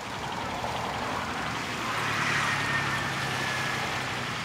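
A motor vehicle passing by, its noise swelling to its loudest about halfway through and then easing off, with a low engine hum.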